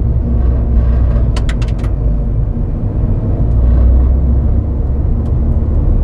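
Honda Civic Type R EP3's 2.0-litre four-cylinder engine running at low, steady revs, heard as a deep exhaust rumble from a microphone at the exhaust. A quick run of four sharp clicks comes about a second and a half in.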